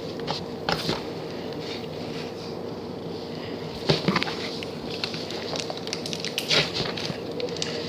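Sequined smoothie slime being handled, giving scattered small sticky clicks and crackles, the loudest about a second in, near the middle, and past two-thirds of the way.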